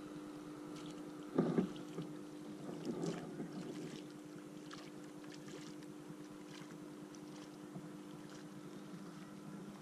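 Kayak sitting on still water: faint water and wind noise around the hull over a steady low hum, with two short bumps about a second and a half and three seconds in.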